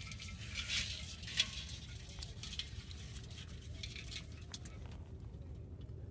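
Faint wet clicking and rustling of a live catch of prawns, crabs and eels shifting in a metal pot as a hand picks out a large prawn; the clicking thins out after about five seconds.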